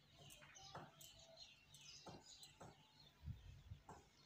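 Faint chirping of small birds: many short, falling chirps repeating throughout, with scattered soft knocks and a low thump a little past three seconds.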